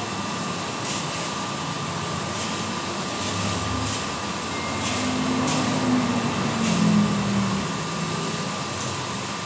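Small drum coffee roaster running at the cooling stage, its fan and motor making a steady whir while the freshly roasted beans cool in the tray. A few light clicks come from the beans being stirred by hand.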